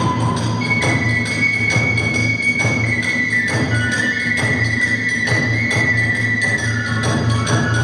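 Kagura ensemble music: a bamboo flute playing long held notes that slide from one pitch to the next, over a steady even beat of drum and small hand cymbals.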